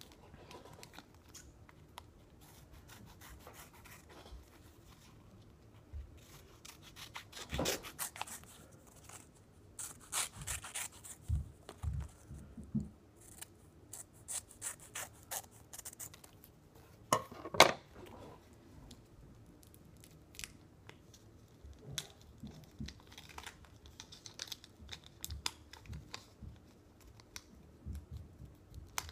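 Scissors snipping open a small paper sticker pack in short, irregular cuts, with rubbing and tearing of the wrapper between them. One snip about two thirds of the way through is the loudest.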